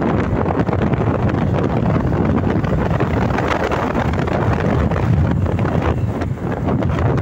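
Wind buffeting the microphone of a phone on a moving motorbike, loud and steady, with the ride's vehicle noise mixed in.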